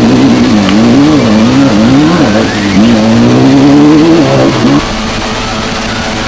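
Off-road race car's engine revving, its pitch rising and falling over and over. It cuts off suddenly near the end and music takes over.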